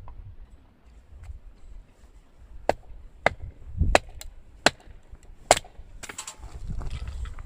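A series of about six sharp knocks, irregularly spaced over some three seconds, followed by a brief rustling noise near the end.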